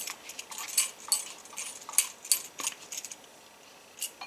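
Silicone spatula scraping and tapping the inside of a plastic measuring cup while buttermilk is emptied into a stainless steel mixing bowl: a quick run of sharp scrapes and clicks, dying down for the last second before one more click.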